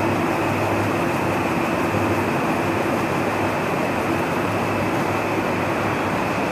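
Steady, unbroken background drone with a low hum, like a running fan or machine; no knocks or changes.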